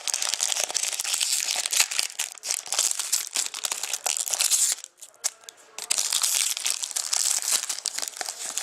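Plastic wrapping crinkling and tearing as a sealed box of trading cards is unwrapped: dense crackling in two long spells, with a brief pause about five seconds in.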